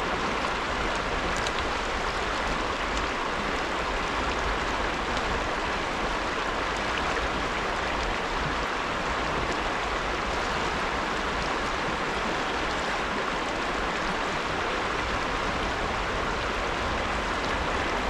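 Small mountain creek flowing over rocks, a steady, even rush of water.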